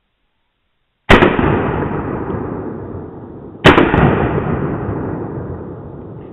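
Two 12-gauge shotgun blasts from a Ruger Red Label over-under, played back slowed down. The shots come about two and a half seconds apart, and each fades in a long, deep tail.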